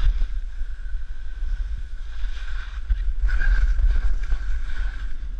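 Wind rumbling on the camera's microphone during a ski descent, with skis hissing over snow. The hiss swells in the turns a few seconds in.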